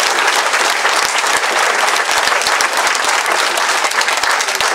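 Theatre audience applauding, a dense, steady clatter of many hands clapping.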